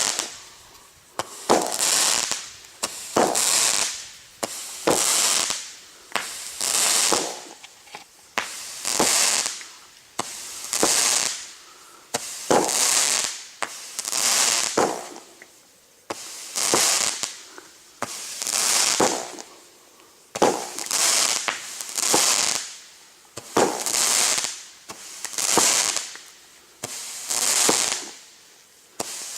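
Multi-shot aerial firework, the "Blizzard", firing shot after shot at about one a second. Each shot is a sharp bang followed by a high hissing crackle that fades before the next.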